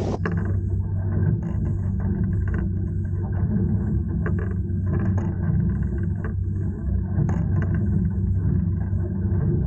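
An engine running steadily, heard as a low drone with scattered small clicks and rattles.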